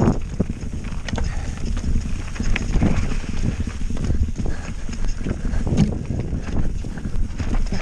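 Santa Cruz Nomad 4 full-suspension mountain bike rattling down a rocky trail: tyres rolling over rock and dirt, with a dense run of irregular knocks and clatter as the bike hits the stones.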